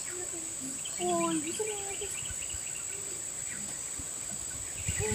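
Insects droning steadily at a high pitch, with brief low voices about a second in and again near the end.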